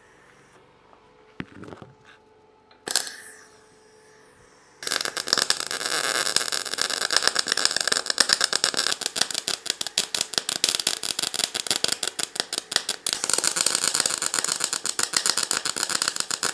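Wire-feed (MIG-type) welder arc crackling steadily as it welds steel, starting about five seconds in. A single sharp click comes about three seconds in, before the welding starts.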